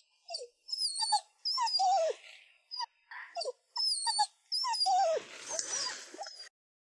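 A dog whining in a run of short, high cries, each falling in pitch. The whines cut off suddenly near the end.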